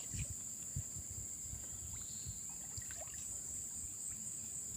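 Faint lapping and trickling of shallow water, with a steady high-pitched hiss throughout.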